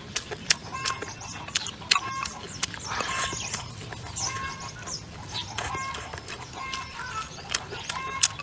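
Chickens clucking in short repeated calls, mixed with many sharp clicks.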